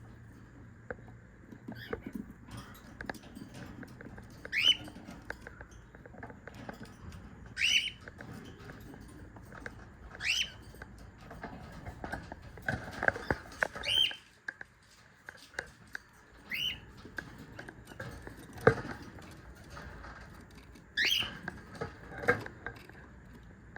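Cockatiels calling: short upward-sweeping calls repeated every few seconds, with a few sharp knocks and rustling between them.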